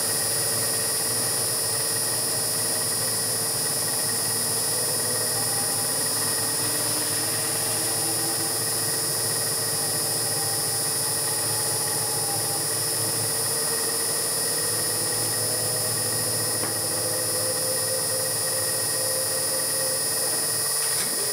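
Home-built CNC milling machine with its spindle running and an end mill cutting a cam lobe into a round metal bar: a steady whine of several fixed tones over a constant hiss.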